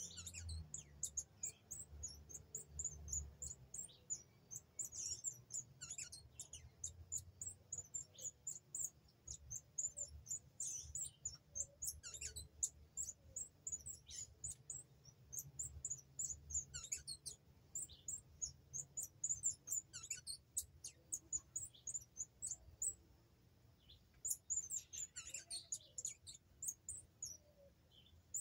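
Birds giving many short, high chirps at an irregular pace, some calls sliding steeply down in pitch. A low rumble sits underneath, strongest in the first few seconds.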